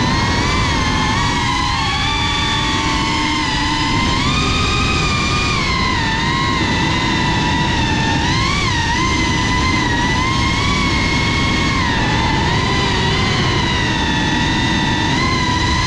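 Motors and propellers of a GEPRC CineLog 35 FPV cinewhoop whining, the pitch rising and falling with throttle changes, over a steady rush of low rumble.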